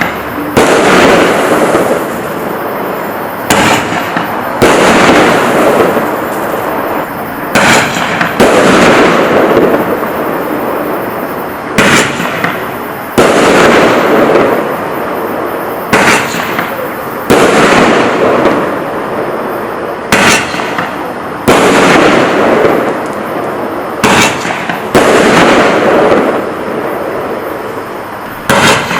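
Large consumer firework candles firing shot after shot, about one every four seconds: each a sharp launch crack, then about a second later a loud aerial burst whose noise fades over a couple of seconds.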